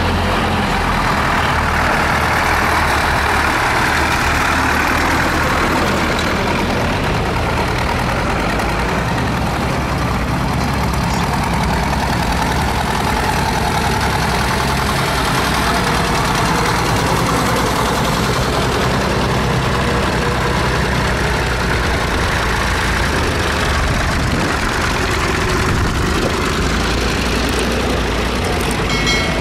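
Several vintage diesel tractors running at low speed as they drive past one after another, a steady, overlapping engine rumble.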